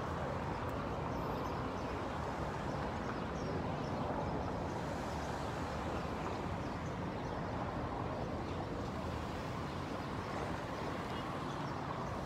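Steady outdoor city-square background noise: an even hum of distant traffic with no single event standing out.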